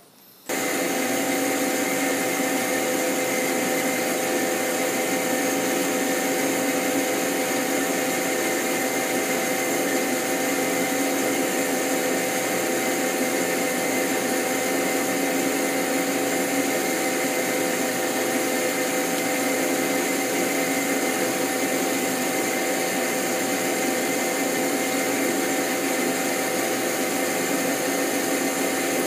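Metal lathe running steadily while a boring bar cuts a bearing bore in a metal hub: an even machine hum with several steady whining tones. It starts suddenly about half a second in.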